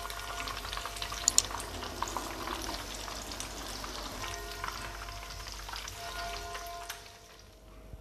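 Pork-topped bread slices sizzling in hot oil in a frying pan: a steady crackle with scattered sharp pops. It fades out about seven seconds in.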